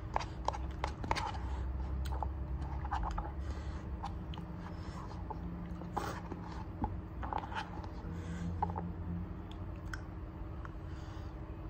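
A fork scraping and clicking against the inside of a paper cup of Samyang cheese hot chicken ramen as the noodles are stirred and lifted, in many short irregular taps and scrapes, with chewing of the noodles near the end.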